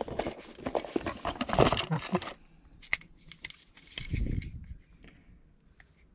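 Hands handling a replacement ignition lock cylinder and its packaging: a couple of seconds of busy rattling and clicking, then scattered sharp clicks and a dull bump about four seconds in.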